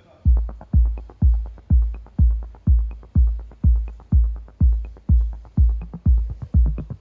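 Electronic dance music with a heavy, steady kick drum beating about twice a second and a light tick on some beats.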